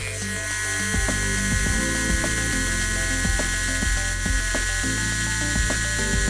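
Milling spindle driving a carbide-tipped wood router bit through brass, cutting a cove profile: a steady high whine of the spinning cutter, under background music.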